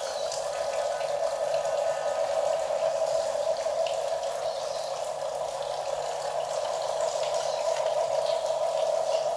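Steady whine of a radio-controlled construction model's small electric motor and gearbox, with faint scattered crackling over it.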